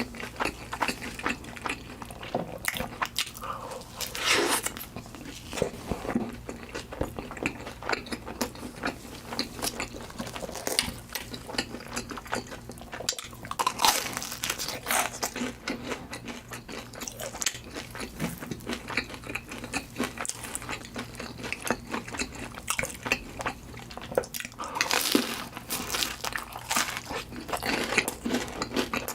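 Close-miked eating sounds: chewing and crunchy bites throughout, with louder bursts of crunching about four seconds in, around fourteen seconds, and near the end.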